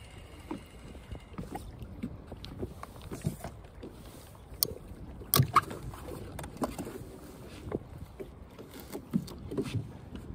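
Water lapping and slapping against the hull of a small fishing boat, with irregular small knocks and clicks. A few sharper knocks come about halfway through.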